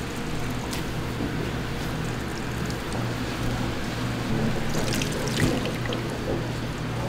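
Wet blanched kudzu shoots being tossed and squeezed by gloved hands in an earthenware bowl, a soft, continuous wet rustle with scattered crackles, over a steady low hum.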